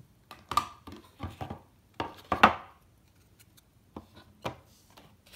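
Cardboard trading cards being handled by hand: a string of short taps and flicks as the cards are shifted and knocked against each other, the loudest about two and a half seconds in, then two lighter ones near the end.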